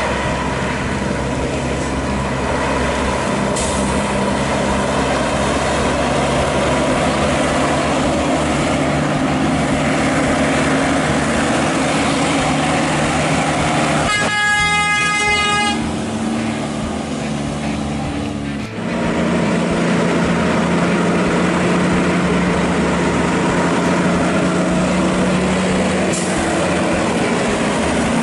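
Heavy diesel trucks pulling up a steep grade, engines running steadily under load. About halfway through, a truck horn sounds once for nearly two seconds.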